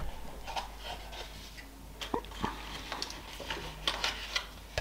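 Faint rustling with a few light clicks and knocks from box contents and packaging being handled while the next accessory is taken out.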